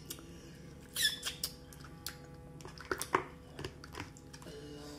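Snow crab leg shells being cracked and picked apart by hand: scattered sharp clicks and cracks, the loudest about a second in and around three seconds in, with a brief high falling squeak about a second in.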